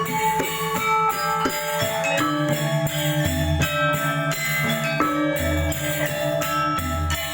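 Balinese gamelan playing: bronze metallophones ring out a fast run of pitched notes over sharp cymbal-like strikes, with a deep low gong-like stroke recurring about every two seconds.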